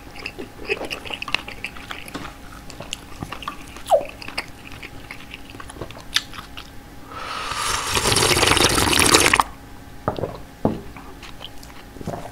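Close-miked eating sounds: soft chewing and small mouth clicks, then about seven seconds in a loud slurp of beef-head soup broth lasting about two seconds, followed by more quiet chewing.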